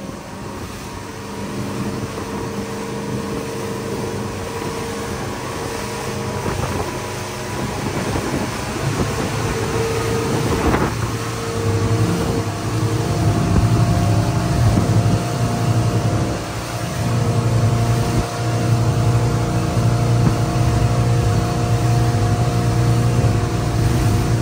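Cabin cruiser's engine running under way, a steady hum that grows louder over the first dozen seconds or so. A single knock about eleven seconds in.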